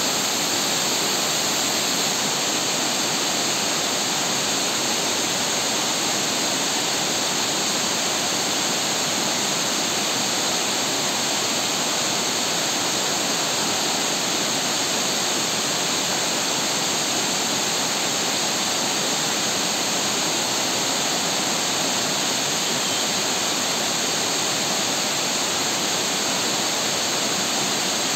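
Waterfall cascading down a stepped rock face into a pool: a steady, even rush of falling water.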